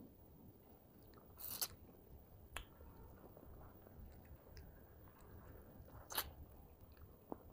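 A person eating crispy fried fish close to a clip-on microphone: soft wet chewing with several sharp crunches as she bites, the loudest about a second and a half in and about six seconds in.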